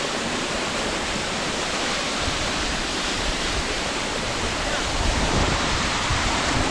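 Steady rush of a small waterfall: water falling and splashing.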